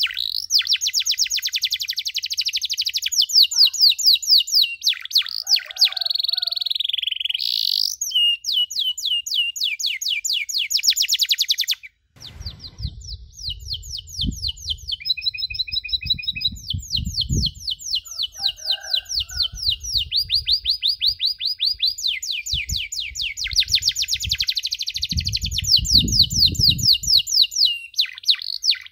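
Domestic canary singing a fast, continuous run of sharp repeated chirps (the 'cuit cuit' call), with a few short held notes partway through. Song breaks off briefly about twelve seconds in. Low thumps and rumble come through in the second half.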